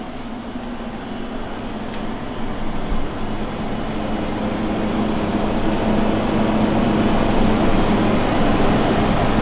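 Steady mechanical hum with a low steady tone, slowly getting louder.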